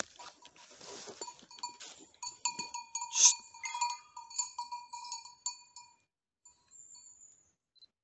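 Dog bells on hunting English setters ringing irregularly as the dogs move through the undergrowth, after rustling of brush and leaves in the first couple of seconds. The ringing is loudest about three seconds in and fades out about six seconds in.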